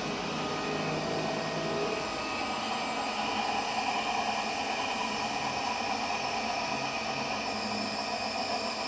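Electric motor run by a repaired Telemecanique Altivar 71 variable-frequency drive on test: a steady whir with a few high whining tones that grow a little stronger and slightly higher about three seconds in.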